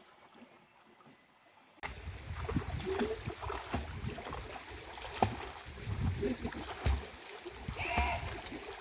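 Water sloshing and splashing with sharp little splats and low rumbling, starting abruptly about two seconds in after near quiet.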